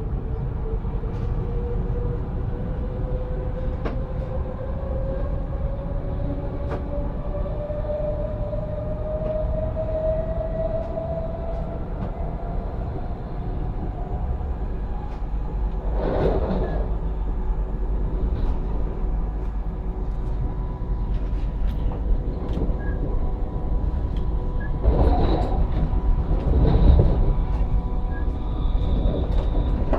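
Pendolino ED250 electric train running, a steady rumble with its traction motor whine rising slowly in pitch as it picks up speed. A few heavy knocks come about halfway through and twice more near the end.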